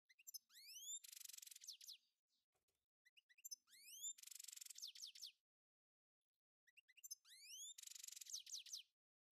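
Bird-like chirping phrase repeated three times about three seconds apart: a few short chirps, rising whistled sweeps, a fast buzzy trill and a run of falling notes, with dead silence between phrases. No pan sizzle is heard.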